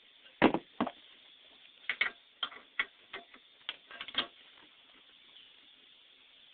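A string of irregular sharp clicks and knocks, about a dozen spread over four seconds, the loudest near the start, from objects being handled.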